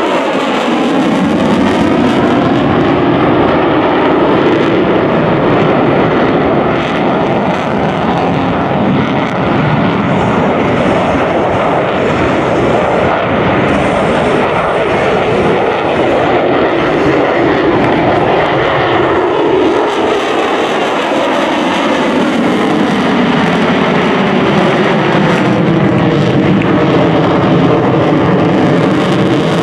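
The twin afterburning turbofans of a Lockheed Martin F-22 Raptor make loud, continuous jet noise during a high-g display manoeuvre. The noise carries a slow, wavering sweep in pitch as the jet turns overhead.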